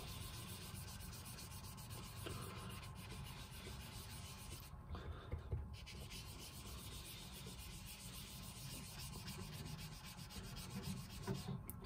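Foam sponge dauber rubbing ink onto smooth white cardstock over and over, a faint, steady scuffing.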